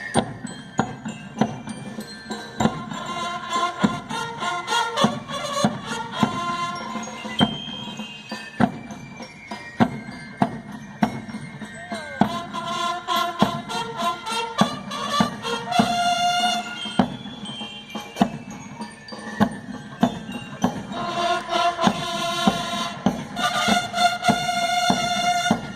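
Marching band playing a piece: regular drum strokes under a bright, ringing melody.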